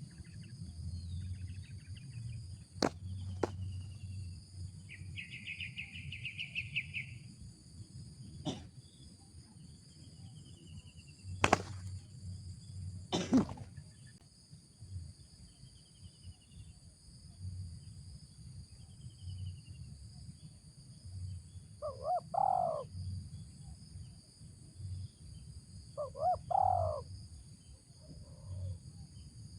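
Spotted dove cooing: two short coo phrases in the last third. Under them runs a steady high insect drone, with a few sharp clicks and a brief buzzing trill in the first half.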